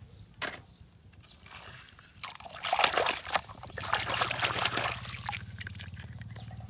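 Water splashing and trickling over a toy cement mixer truck as it is washed, loudest for two or three seconds in the middle, with small clicks of the toy being handled.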